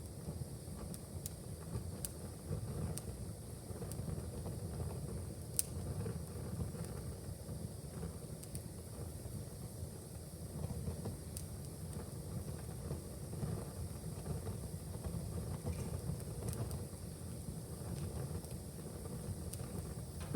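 Wood fire in a fireplace crackling: scattered sharp pops and snaps, the loudest about five and a half seconds in, over a steady low rumble of the flames.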